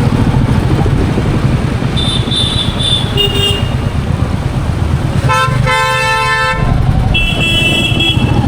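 Royal Enfield Meteor 350's single-cylinder engine running steadily on the move, with vehicle horns honking in traffic: a short high-pitched honk about two seconds in, a louder, lower horn blast lasting about a second just after the midpoint, and another high honk near the end.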